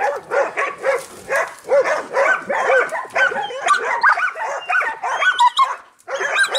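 Hunting dogs barking and yelping at a caught pig, in quick repeated calls, several a second, that pause briefly near the end.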